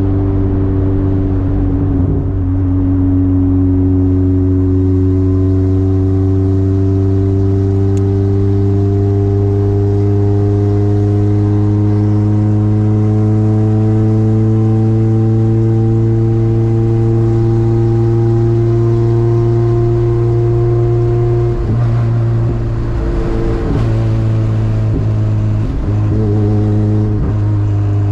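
A car's Toyota 2ZZ-GE four-cylinder engine running under way, its pitch climbing slowly and steadily for about twenty seconds, with a steady low drone underneath. Near the end the sound breaks up briefly and the pitch drops, then settles again.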